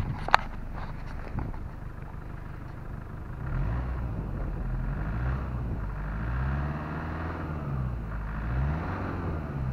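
Mercedes diesel engine running with the clatter of its injection pump and injectors, which the owner finds a little rough at low revs. From about a third of the way in the revs rise and fall several times. A sharp knock comes just after the start.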